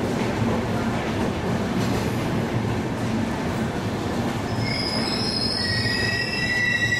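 Passenger train rolling slowly into a station platform, heard from aboard: a steady rumble of the wheels on the rails. About halfway through, the wheels and brakes start to squeal in several high, steady tones as the train slows to a stop.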